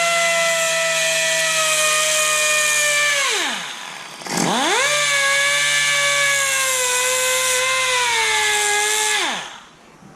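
3-inch cutoff tool running in two bursts, a high whine with a hiss, grinding the edges off a bolt head to round it. The pitch sags a little under the load. The first burst winds down a few seconds in, and the second starts a moment later and winds down near the end.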